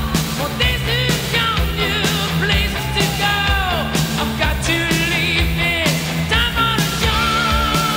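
Loud hard rock music: singing over electric guitars and drums, with a long held note starting near the end.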